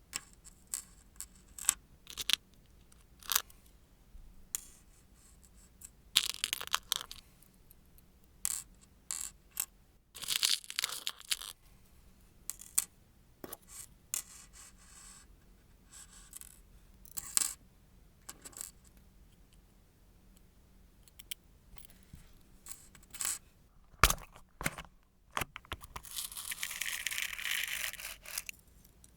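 Close-up handling sounds of nail-care tools and materials: scattered small clicks and taps with short scrapes, and a longer scraping rustle near the end.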